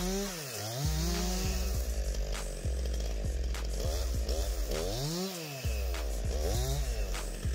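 Two-stroke chainsaw cutting into a tree trunk, its engine revving up and dropping back again and again, falling almost to idle twice before climbing back to full revs.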